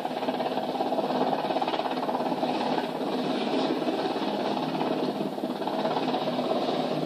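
RAF Westland Sea King search-and-rescue helicopter hovering low, its rotor and engines running steadily, heard thin and without bass through a television speaker.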